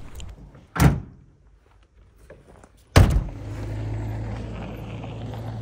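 Two heavy slams about two seconds apart, a pickup truck's door or tailgate being shut, the second the louder; a steady low hum follows it.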